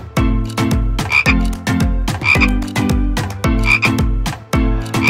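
Frog croak sound effect repeating four times, about every second and a quarter, over upbeat background music with a steady beat.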